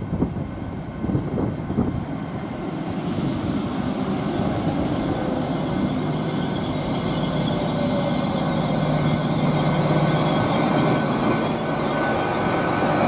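TransPennine Express Class 802 train running into the platform and slowing alongside, with a rumble of wheels on rail. From about three seconds in there is a steady high-pitched brake squeal, over a low steady hum from the train.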